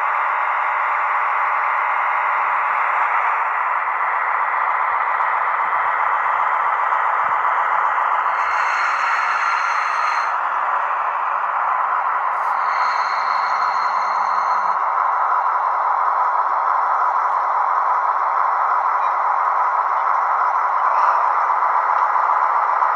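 Model class 218 diesel locomotive running slowly on model railway track with a steady rattling hum, a brief high squeal sounding twice in the middle as it closes up to a coach to couple.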